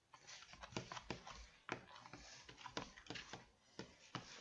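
Glue slime being mixed with borax activator in a bowl: faint, irregular sticky clicks and squelches, several a second.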